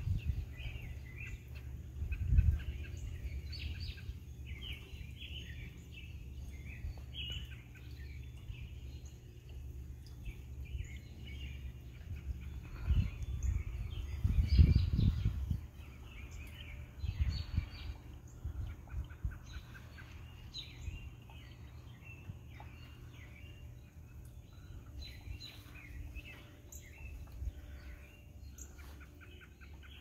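Songbirds chirping and calling in the trees, many short high calls overlapping throughout. Low rumbles come and go underneath, loudest about halfway through.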